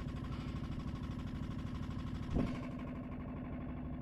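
An engine running steadily at idle with an even, fast pulse, and a single brief knock about two and a half seconds in.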